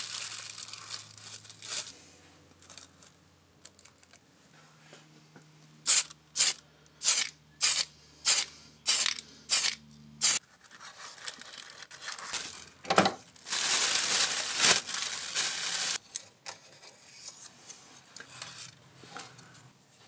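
Aerosol spray paint can: a run of about eight short sprays, roughly two a second, then a longer spray of about three seconds, painting the masked gauge needles.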